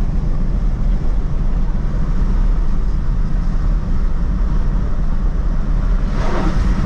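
Chevrolet S10 pickup driving at highway speed: a steady low rumble of engine and road noise. About six seconds in there is a brief rushing swell.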